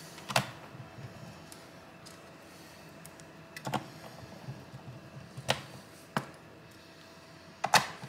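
A handful of separate sharp taps and clicks: a hand handling a screwdriver and the laptop case on a bench, with a quick double click near the end.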